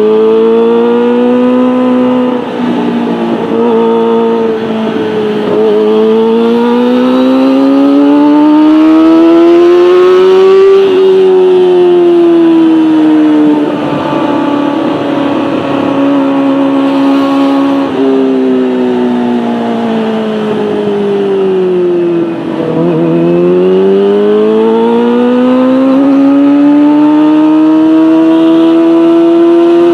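Kawasaki Ninja ZX-25R's inline-four engine running loud through a Beet Nassert R Evolution exhaust with the catalytic converter removed. Its pitch climbs steadily, drops about eleven seconds in and sinks slowly, then dips sharply near twenty-three seconds and climbs again.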